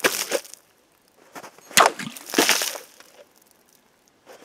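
Anika workshop mini parang slashing through hanging plastic bottles full of water: a sharp chop with a splash of water right at the start, then two more close together about two seconds in.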